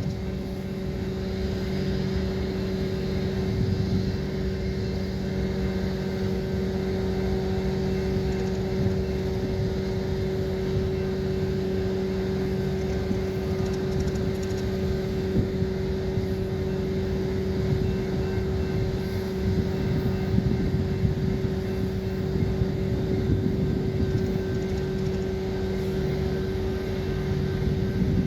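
Steady mechanical hum from an engine or machinery, a low drone that holds one pitch and does not change.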